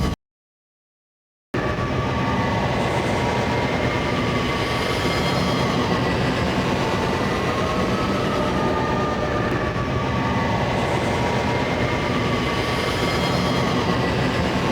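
Mawhonic's podracer engine sound effect, the distant moving loop: a steady, droning engine whine whose pitch wavers slowly. It starts after about a second and a half of silence.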